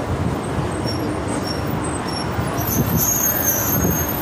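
City street traffic noise: a steady rumble of passing vehicles, a little louder about three seconds in.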